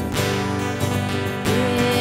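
Live church worship music from the band, with a held melody line coming in about one and a half seconds in.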